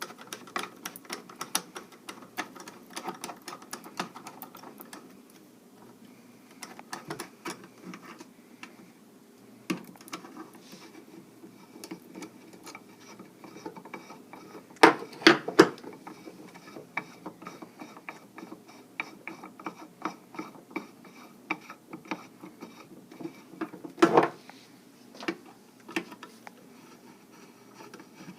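Hand tools and metal parts of a Commando Mark III carbine being handled during disassembly: a run of small clicks and ticks as screws are worked out and the buttstock is taken off, with a few louder knocks about halfway through and near the end.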